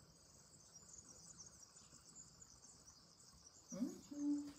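Insects chirping steadily in a high, continuous chorus, with a short voiced sound from a woman near the end.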